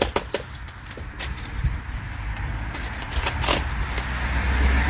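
A car passing on a road, its rumble and tyre hiss building toward the end. A few sharp clicks and knocks of packages being handled come near the start and again about three seconds in.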